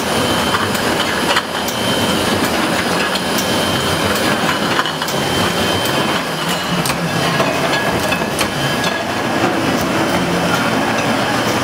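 Wine bottling line running: a steady machinery din with frequent sharp clicks and clinks from glass bottles moving through the filler.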